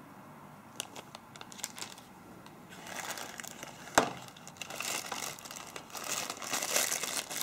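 Plastic packaging bags crinkling and a cardboard box rustling as they are handled, with only a few small clicks at first and busier crinkling from about three seconds in. One sharp knock about four seconds in is the loudest sound.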